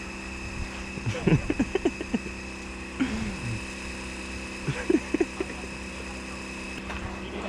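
A steady motor hum holding several fixed pitches, with short bursts of a person's voice over it about one, three and five seconds in.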